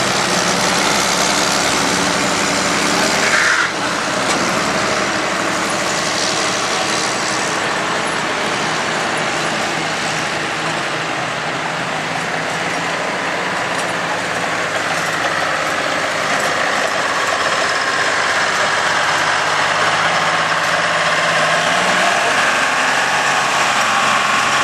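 Tractor engine running as it tows the pulling sled back down the track. The engine note drops about three and a half seconds in and climbs again near the end as the tractor pulls harder.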